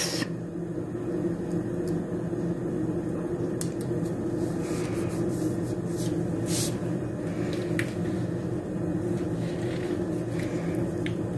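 Steady low mechanical hum of a running fan or appliance, with a few light clicks and a soft rustle from stickers and paper being handled on the planner page.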